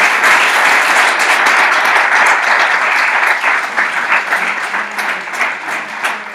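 Audience applauding at the end of a talk: dense at first, then thinning out toward the end into more separate claps.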